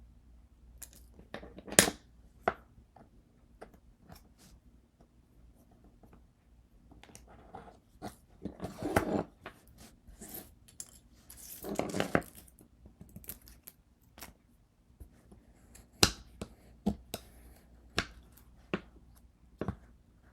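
Hand handling noises at a work table: scattered sharp taps and clicks, with two longer rustling, crinkling stretches about 9 and 12 seconds in.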